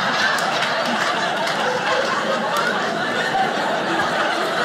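Theatre audience laughing together, a steady wash of many people chuckling at once.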